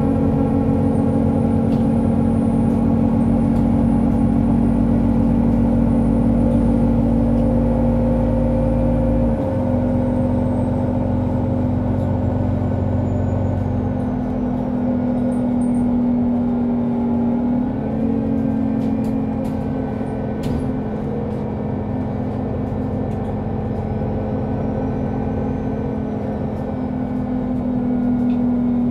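Solaris Urbino 18 III articulated bus driving, its engine and drivetrain humming steadily. The pitch shifts a few times, at about a third of the way in, around two-thirds, and again near the end.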